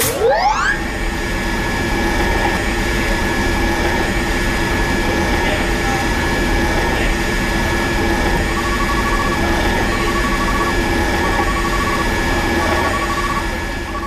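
Electric pump motor sound effect: it spins up with a rising whine in the first second, then runs with a steady whine and hum. From about two-thirds of the way in, a short beep repeats at an even pace.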